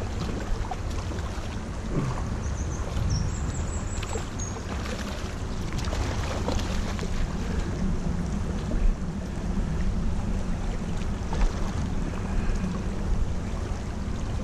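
Shallow river running over stones, with wind buffeting on the microphone and a few short knocks.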